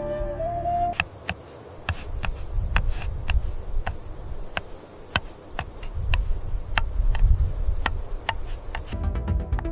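Irregular sharp clicks and crackles over a low rumble and hiss. Soft music cuts off about a second in and returns near the end.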